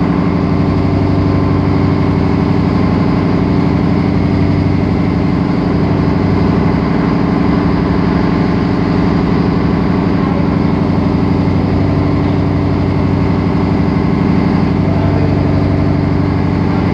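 A boat's engine running steadily at cruising speed, a constant even drone, with water rushing along the hull.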